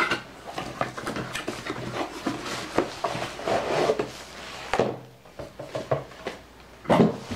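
Cardboard headset box being opened and handled: the lid and inner packaging are pulled out, with rustling, scraping and scattered clicks and taps.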